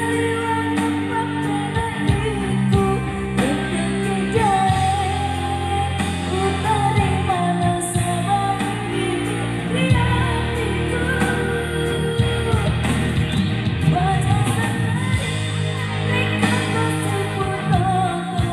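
A pop song: a singer's voice carrying the melody over a full instrumental backing.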